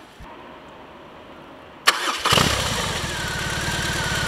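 BMW R 18's 1,802 cc boxer twin being started: a sharp click about two seconds in, a brief crank, then the engine catches loudly and settles into a steady idle with evenly spaced firing pulses.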